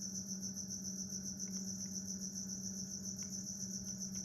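Crickets chirping in a continuous, rapidly pulsing high trill, over a steady low hum.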